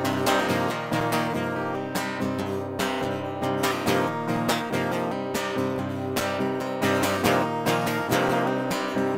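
Acoustic guitar strummed in a steady rhythm, a strong downstroke about once a second with lighter strokes between.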